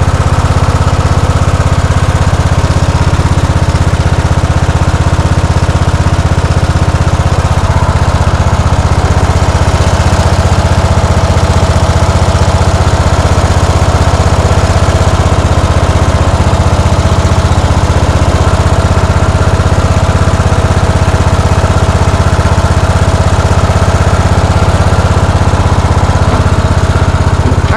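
Riding lawn mower engine running loud and steady at an even speed, with no bogging or change in pitch.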